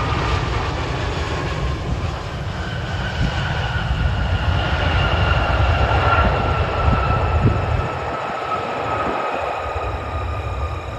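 Jet airliner's engines passing by as it arrives: a steady low rumble with a high whine that slowly falls in pitch, loudest about halfway through.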